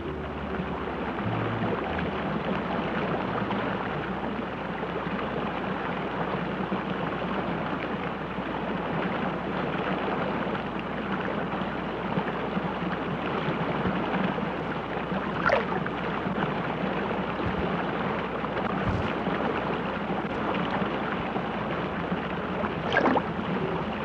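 Steady rush of running stream water, with a few brief clicks.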